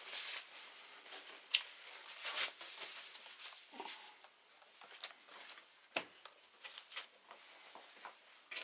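Small irregular clicks, taps and short scraping or rubbing sounds, typical of hand work on a laptop's plastic and metal parts, with a sharper click about a second and a half in and a heavier knock about six seconds in.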